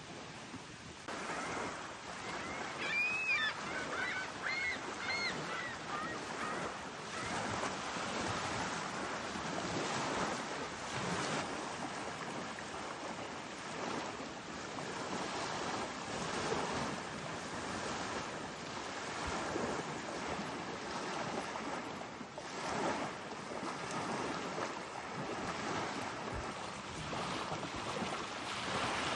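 Steady rushing outdoor noise that swells and eases every second or two. A few short, high chirps come about three to six seconds in.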